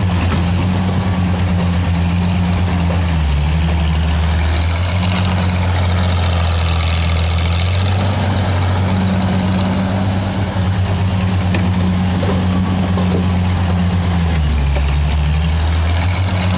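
1961 Bantam T-350 cable excavator's engine running steadily through a digging cycle. Its note pulls down lower twice, about three seconds in and again near the end, as the machine takes load, then comes back up.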